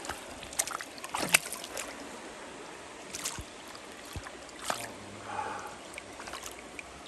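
Shallow creek water splashing and sloshing as hands rinse and hold a rainbow trout in it. There are a few sharp splashes over the steady running of the stream.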